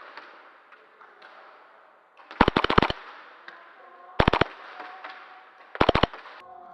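Airsoft gun firing three short full-auto bursts of rapid sharp cracks, about one and a half seconds apart, the first burst the longest.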